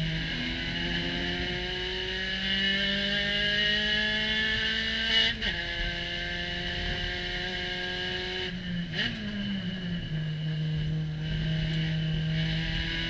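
Spec Racer Ford Gen3 race car engine heard from the cockpit at full throttle: the revs climb for about five seconds, drop sharply at an upshift into fourth gear, and hold steady. About nine seconds in the driver comes off the throttle and downshifts to third with a quick rev blip, then the revs climb slowly again through the corner.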